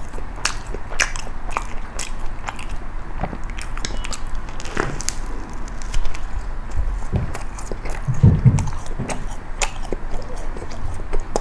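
Close-miked crunchy bites and chewing of toasted kaya jam toast, with a run of crisp crackles. A dull low thump comes about eight seconds in.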